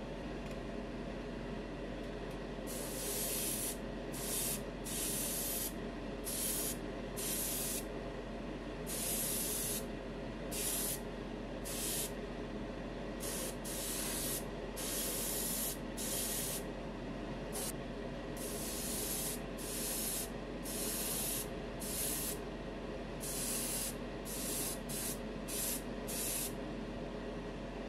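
Gravity-feed airbrush spraying enamel paint in many short bursts of hiss, each under a second or so, as the trigger is pressed and let go; the bursts begin about three seconds in. A steady hum runs underneath.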